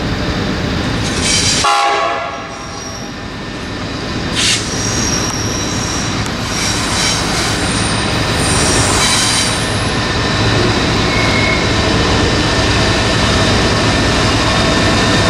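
Freight train hauled by NR class diesel-electric locomotives, their engines running and growing louder as the train approaches. A short horn blast cuts off just before two seconds in, and high-pitched wheel squeal from the curve comes between about five and ten seconds in.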